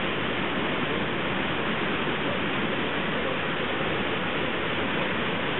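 Steady rush of the Brooks River's flowing water, an even hiss without breaks.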